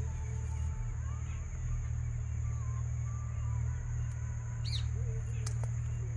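Outdoor ambience with a bird giving a single quick, rising chirp just before the last second and a half, over a steady high-pitched whine and a steady low hum.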